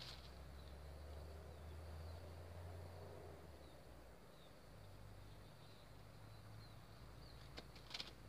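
Quiet rural outdoor ambience: short, faint high chirps scattered throughout over a low steady hum, with a few sharp clicks near the end.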